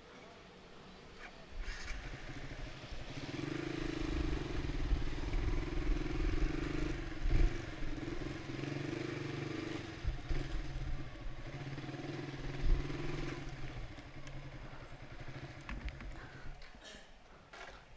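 Motorcycle engine running at a steady pitch, the sound building over the first few seconds and fading away near the end.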